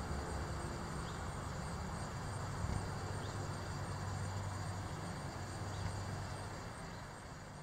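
Outdoor ambience: a steady insect trill over a constant low background noise, fading down near the end.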